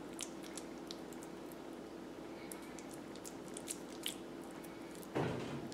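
Faint wet squishing and small sticky clicks of hands pressing a ball of diced raw tuna and smoked salmon in spicy mayo into shape, over a steady low hum. A brief louder noise comes about five seconds in.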